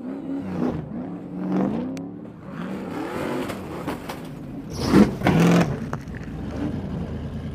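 Stadium Super Trucks' race engines revving hard as the trucks race over the gap jump, rising and falling in pitch, loudest about five seconds in.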